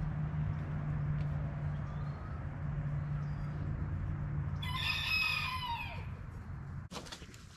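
A rooster crows once, about five seconds in, a call of about a second and a half whose pitch drops away at the end, over a steady low hum.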